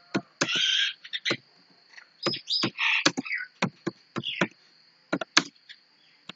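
Typing on a laptop keyboard: irregular sharp key clicks, several a second, with short pauses between runs of keys.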